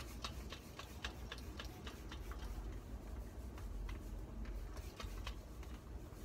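Trigger spray bottle spritzing water onto a synthetic wig in quick short squirts, about three a second.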